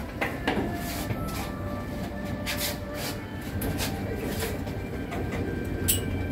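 Passenger elevator with its sliding stainless-steel doors: a steady low hum with scattered clicks and rattles as the doors open and then slide shut, with a sharp click just before the end.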